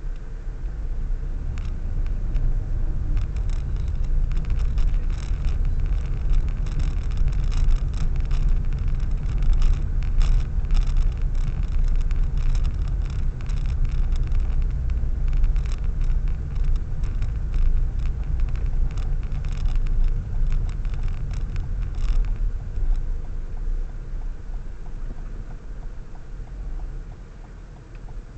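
Car driving, heard from inside the cabin: a steady low engine and road rumble, with a scatter of small clicks and rattles through the middle stretch. The rumble gets quieter over the last few seconds.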